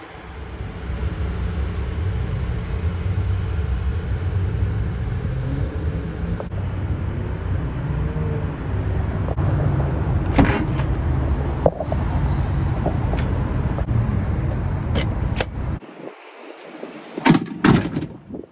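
Ford F-150 Raptor's engine running with a steady low rumble that stops abruptly about sixteen seconds in. Sharp clicks come through in the second half, and a few louder clicks and knocks follow near the end.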